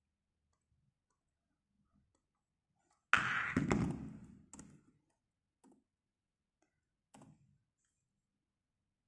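A sudden thump about three seconds in that dies away over a second or so, followed by a few faint clicks.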